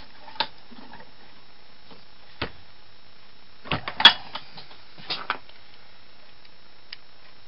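Scattered sharp metal clicks and knocks from a steel part of a Roto window corner drive being pushed and worked through its tight guide by hand. A small cluster of clicks comes about four seconds in, holding the loudest one.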